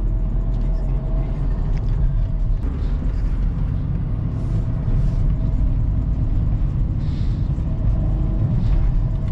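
Steady cabin rumble of a BMW X4 35i rolling slowly through city traffic: its inline-six running evenly under road noise, heard from inside the cabin.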